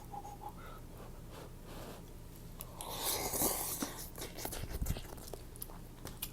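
Close-miked mouth sounds of eating noodles: wet clicks and chewing, with a longer hissing sound about three seconds in.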